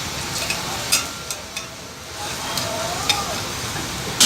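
Dosa sizzling on a hot griddle, with scattered metal clicks and scrapes from a spatula and one sharp, loud knock near the end.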